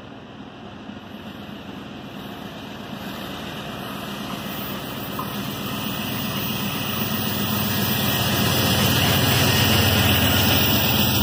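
Amtrak Empire Builder passenger train's diesel locomotives approaching and rumbling past, the engine sound growing steadily louder over several seconds. Near the end the locomotives have gone by and the bilevel cars roll past with wheel-on-rail noise.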